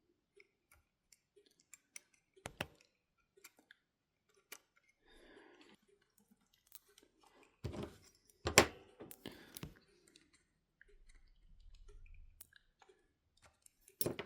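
Small clicks and handling noises of a model locomotive's bogie frame being pried apart by hand to free the leading wheelset, with a few sharper clicks about two thirds of the way through.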